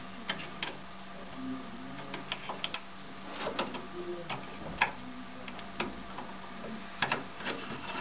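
Scattered small clicks and scrapes of a memory DIMM being lined up and worked into its slot inside a plotter's electronics bay, over a steady low hum.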